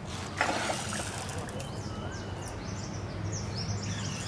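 Hooked snakehead splashing at the surface, a sudden loud splash about half a second in. Short high chirps follow near the end over a steady low background hum.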